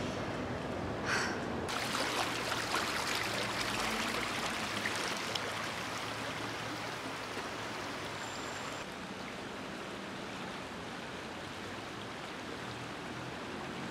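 Shallow stream water running over rocks and stones: a steady rush of flowing water that starts a couple of seconds in.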